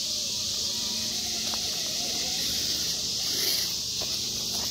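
Steady, high-pitched chorus of night insects, an even hiss-like drone, with a couple of faint clicks beneath it.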